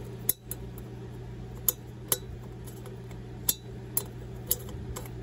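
A steel 90-degree pick clicking and scraping against the metal bezel and retaining tabs of an Oldsmobile dash clock, with several sharp, irregular metallic clicks as it hunts for a hidden tab behind the face plate to bend it out. A steady hum from a space heater runs underneath.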